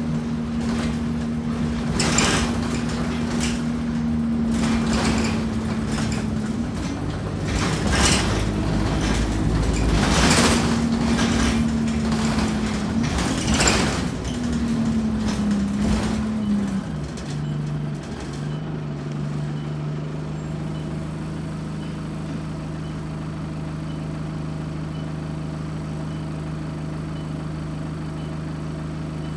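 Interior of an Alexander Dennis Enviro200 diesel single-deck bus: the engine runs under a steady note while the body rattles and knocks. About two-thirds of the way through, the engine note drops to a lower, steadier hum and the rattling stops.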